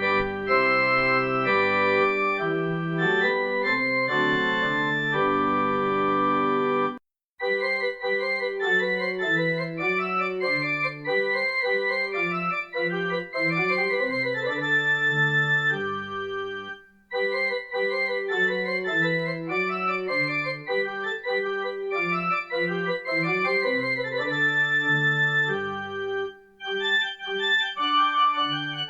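Organ playing held chords that change every second or so. The sound drops out completely for a moment about seven seconds in and dips again around seventeen seconds.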